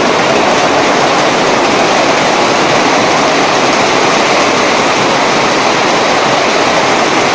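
Heavy hailstorm: a loud, steady rush of hailstones pelting down thickly.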